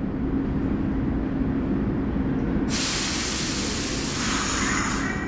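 R62A subway train standing at the platform with a steady hum, then about two and a half seconds in a sudden loud hiss of air from its brakes releasing, lasting a little over two seconds.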